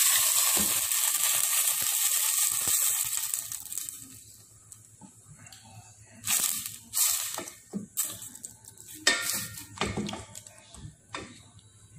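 Hot water poured from a mug into a stainless steel pot of fish and tomatoes, splashing and hissing steadily for about three seconds before it fades. After that, a wooden spatula stirs the pot, knocking and scraping against the pot several times in short sharp taps.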